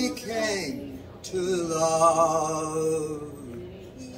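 A man singing a slow gospel hymn into a karaoke microphone, drawing out long held notes with vibrato.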